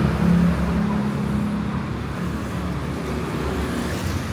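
Street traffic: a motor vehicle's engine hum close by, fading over the first second or so, over a steady traffic rumble.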